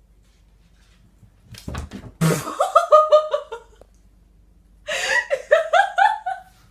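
A person laughing hard in two bouts of quick ha-ha bursts, after a short thump about two seconds in.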